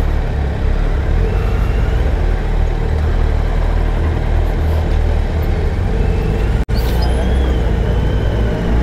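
Superbike engine running steadily at low speed, a continuous low rumble while creeping through congested traffic. The sound drops out for an instant about two-thirds of the way through.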